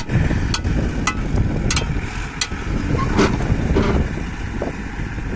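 Heavy diesel machinery running steadily, with about seven sharp knocks over the first four seconds.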